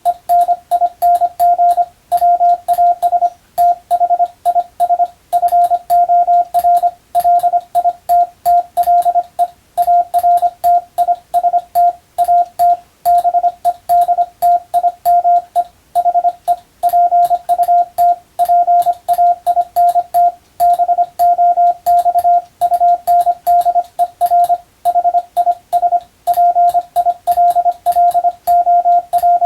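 Hand-sent Morse code (CW): a single steady mid-pitched tone keyed on and off in dots and dashes at an even sending speed, with a faint click at the start and end of each element.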